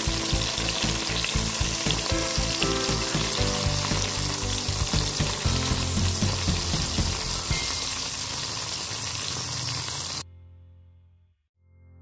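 Hot duck fat sizzling in a cast-iron skillet around a whole roasted duck straight from the oven, as the duck is brushed with the fat. The sizzling cuts off suddenly about ten seconds in.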